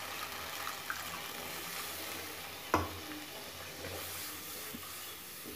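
Water poured into a hot wok of fried spice paste, sizzling, while a wooden spatula stirs it into a thin gravy. There is one sharp clink about three seconds in.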